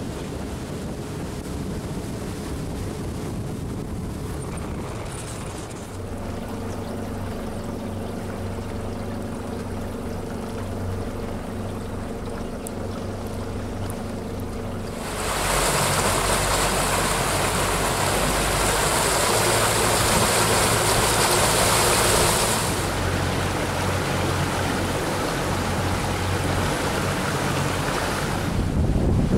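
A boat motor running steadily, its low hum coming through from about six seconds in, under wind buffeting the microphone and water rushing past the hull. About fifteen seconds in, the wind and water noise jumps much louder for about seven seconds, then eases back.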